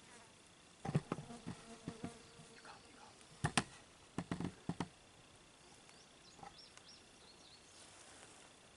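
A run of sharp knocks and taps, a few close together about a second in and another cluster around three and a half to five seconds, over a faint steady insect drone.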